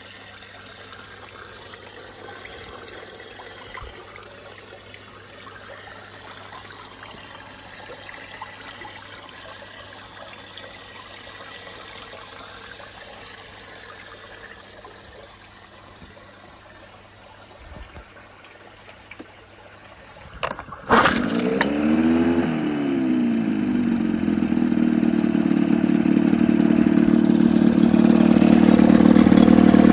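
After about twenty seconds of quiet, a 1981 Johnson 9.9 hp two-stroke outboard starts about 21 seconds in. Its pitch rises and falls briefly as it catches, then it settles into steady running that grows gradually louder.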